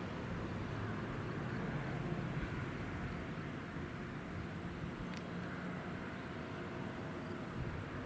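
Outdoor traffic noise: a steady wash of sound with a low engine hum that fades out about three seconds in.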